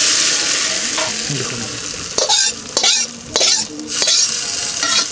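Food hitting hot oil in a cooking pot with a loud sizzle that dies down over about two seconds. Then several sharp scrapes and knocks of a metal ladle as the pot is stirred.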